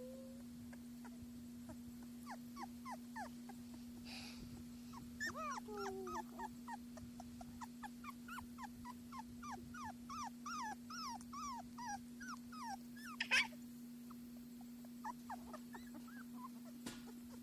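A litter of young puppies whimpering: many short, high whines that fall in pitch, overlapping in a busy run through the middle and sparser near the start and end, the crying that the owner takes for the puppies wanting their mother. A sharp click about thirteen seconds in is the loudest moment, over a steady low hum.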